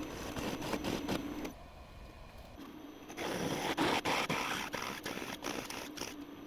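A workshop machine tool running on steel, a steady motor hum under scraping cutting noise with sharp clicks. It stops and restarts abruptly twice.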